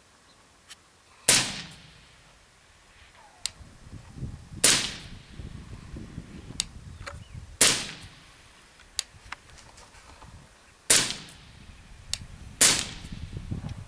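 Suppressed LWRC M6A5 SPR rifle with a YHM Phantom suppressor, firing 77-grain 5.56 mm rounds. It fires five shots, each a sharp crack that trails off briefly, spaced about two to three and a half seconds apart, with faint single ticks between the shots.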